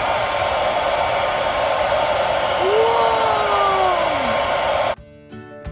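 Hair dryer blowing hot air steadily on crayons, melting the wax. The dryer cuts off suddenly near the end and acoustic guitar music starts.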